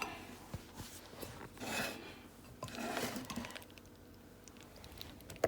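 Quiet kitchen handling as cooked macaroni is scooped into a baking dish: soft scrapes and swishes with a few light clicks of utensil against dish, and a sharper click near the end.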